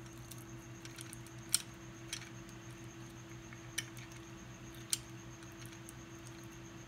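Four light, sharp clicks from the parts of a hand-held 3D-printed magnetic gearbox, its plastic and magnet rings knocking together as the wobbling inner ring is tilted and turned by hand.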